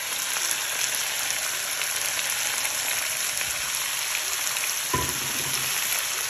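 Chopped onion, scallion and sweet peppers sizzling in olive oil in a nonstick pan as they are stirred: a steady frying hiss with fine crackles. A single knock about five seconds in.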